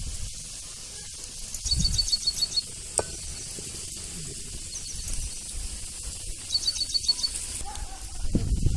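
Small twig and palm-leaf fire crackling lightly in a clay chulha, with one sharp metal clink about three seconds in as a steel kadhai is set on it. A bird calls three times, each a quick run of about eight high notes, and low rumbles come near the start and the end.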